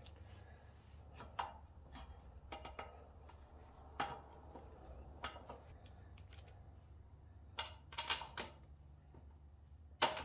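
Scattered metal clicks and clinks as the front brake caliper's mounting bolts and a hand tool are handled and started by hand, with a quick cluster of clicks about eight seconds in and a sharper click near the end.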